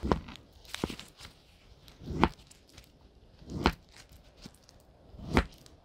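Repeated hard strikes from a swung tool, five in all, about every one and a half seconds. Each strike is preceded by a short rising swish.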